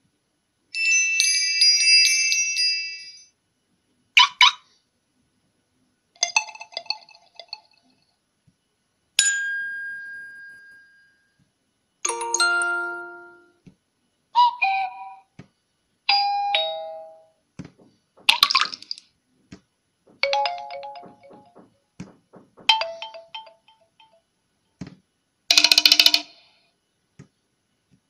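Huawei P20's built-in notification tones previewed one after another through the phone's speaker: about eleven short chimes, bells and tones, each a second or two long with brief silences between.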